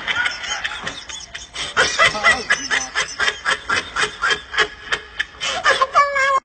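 A man laughing hard in rapid, repeated short bursts, about five a second, with a brief high vocal sound at the end.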